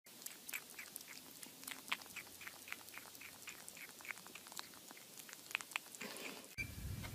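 Kitten chewing on the rim of an orange plastic bowl: a rapid train of faint clicks and crunches, about four a second.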